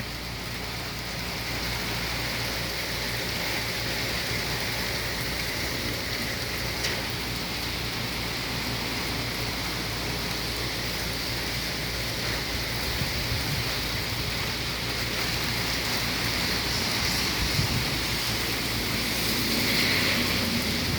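Heavy thunderstorm rain pouring steadily, growing a little louder near the end.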